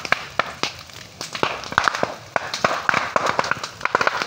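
Open fire burning through bagakay bamboo, crackling with many sharp, irregular pops and cracks over a steady rushing noise.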